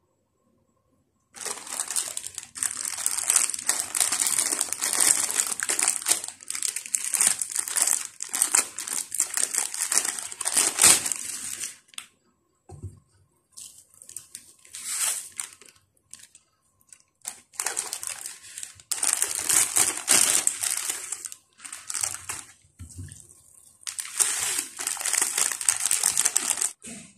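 Plastic instant-noodle packets crinkling loudly in long rustling stretches as they are handled, opened and emptied into the pot.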